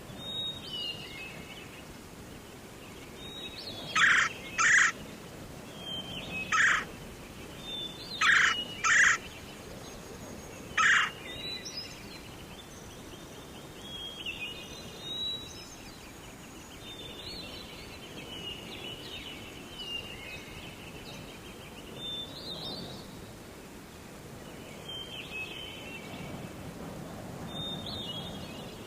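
Wild birds singing in a forest, with small chirps and warbles throughout. Six loud, short, harsh calls come between about four and eleven seconds in.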